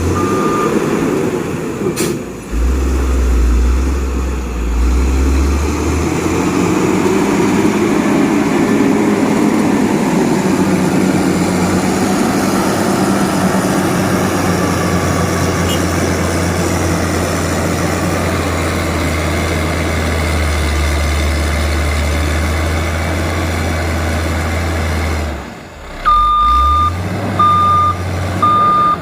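Heavy diesel engine of a road-construction machine running under load with a steady low drone. Near the end a reversing alarm starts beeping repeatedly.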